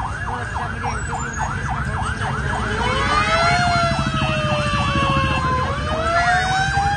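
Fire engine sirens: a fast yelp warbling about three times a second, joined about three seconds in by a slower wail that rises, falls and rises again, over street traffic rumble.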